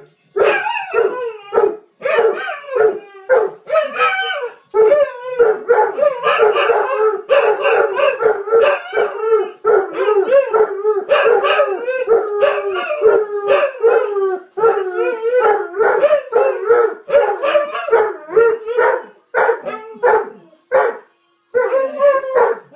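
Two pet dogs howling together in a long run of wavering howls, broken by brief pauses.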